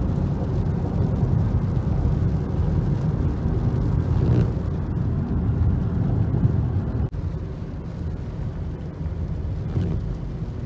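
Steady low rumble of a car driving in the rain, heard inside the cabin: road and engine noise. About seven seconds in it cuts off sharply and resumes slightly quieter.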